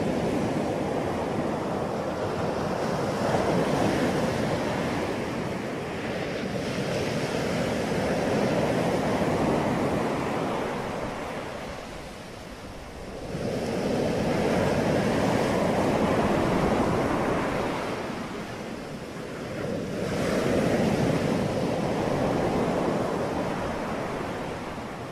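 A rushing noise with no distinct tones that swells and fades in slow waves about every six seconds, like surf breaking.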